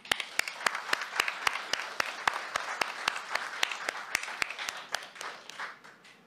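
Applause in a hall, with one person's hand claps close to the microphone, sharp and even at about four a second, over the patter of the audience clapping. The applause dies away near the end.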